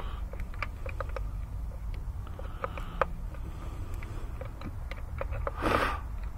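Light, scattered clicks and taps of plastic and metal parts as an ignition coil is worked down onto a spark plug, over a low steady hum, with a short louder rustle near the end.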